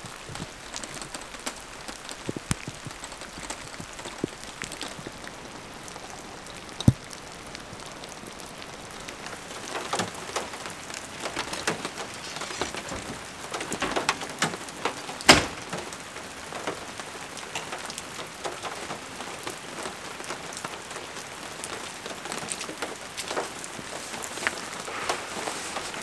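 Steady rain falling, with scattered heavy drips and a few sharp knocks, the loudest about fifteen seconds in.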